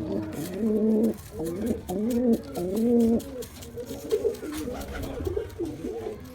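Domestic pigeon cooing: a run of low, rolling coos that rise and fall in pitch. Three loud coos come in the first half, followed by quieter ones.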